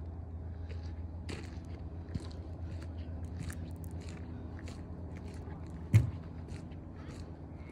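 Footsteps crunching on gritty concrete, with the rubbing and knocking of a handheld phone, over a steady low hum. A sharp thump about six seconds in is the loudest sound.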